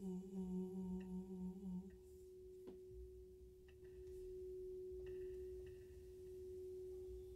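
A gold crystal singing bowl sounding one faint, steady, pure tone. For the first two seconds a man's low hummed note sits beneath it, then the bowl's tone carries on alone.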